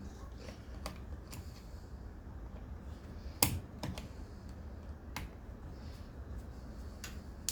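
Scattered light clicks and taps of small plastic and metal trimmer parts and a screwdriver being handled during disassembly, with one sharper knock about three and a half seconds in.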